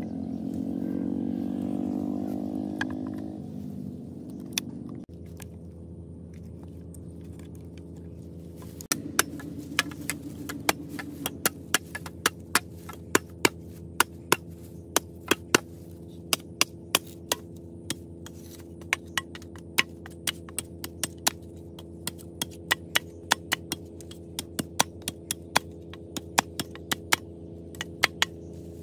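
Knife blade striking and notching a green bamboo stalk: a run of sharp taps, about one or two a second, starting about nine seconds in, over a steady low hum. A passing engine fades out in the first few seconds.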